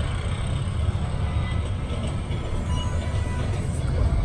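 Steady low rumble of a high-speed elevator cab climbing its shaft.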